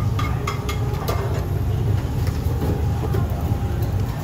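Steady low rumble with a few light clicks and clinks in the first second.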